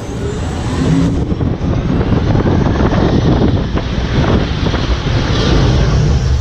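Test Track ride vehicle running over rough track, giving a loud, steady low rumble with rapid rattling.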